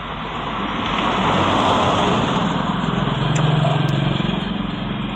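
A motor vehicle passing: a rush of noise swells, then a low engine hum rises to its loudest about three and a half seconds in and fades.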